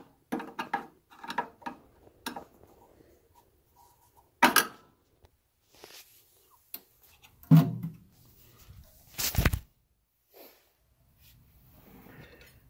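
A screwdriver and loose screws clinking and knocking against the sheet-metal casing of a tankless water heater while the screws on top of the heat exchanger are taken out. A quick run of small clinks in the first couple of seconds, then single louder knocks about four and a half, seven and a half and nine seconds in.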